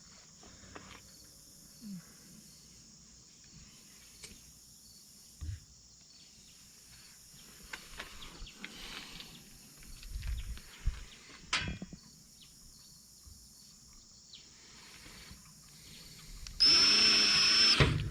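Faint handling knocks, then near the end a power drill runs for about a second and a half with a steady high whine, boring the sling-stud hole into a wooden rifle stock.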